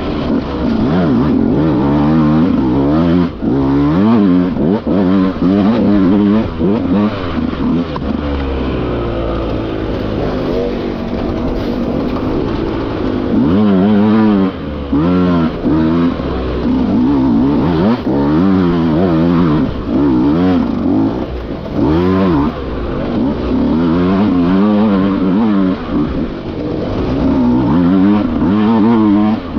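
Dirt bike engine heard on board, revving up and down over and over in short bursts of throttle, with a smoother, steadier stretch about eight to twelve seconds in.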